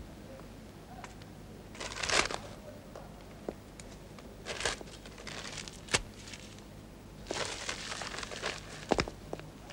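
Paper notices being torn and scraped off a window pane: several rasping bursts of tearing, the longest near the end, with a few sharp clicks between them.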